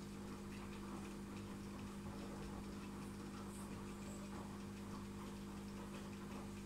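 Aquarium pump humming steadily and low, with a faint crackle of tiny ticks over it.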